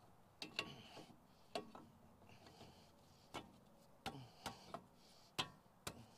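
Scattered sharp metallic clinks and knocks, about eight of them at irregular intervals, as a brake caliper is fitted over the rotor onto a Jeep Cherokee XJ's front steering knuckle.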